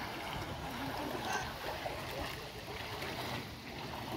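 Shallow sea water sloshing and splashing around the legs of people wading beside an outrigger sailboat, with steady water noise.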